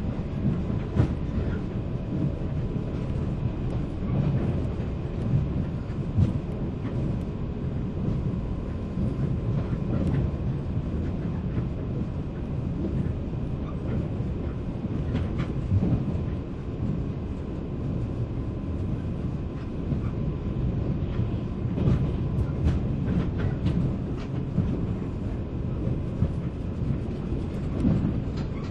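Running noise inside a 485-series electric multiple-unit motor car (MoHa 485-3054): a steady low rumble of wheels on rail, with scattered clicks and knocks.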